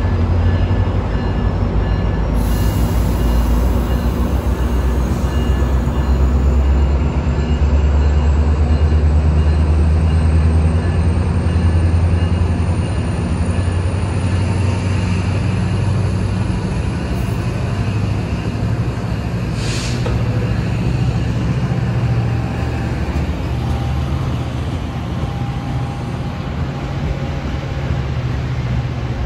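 Metrolink bilevel commuter train pulling out of the station: a steady low diesel rumble with wheels rolling on the rails, and a faint whine that rises slowly in pitch as the train gathers speed. A short hiss about twenty seconds in.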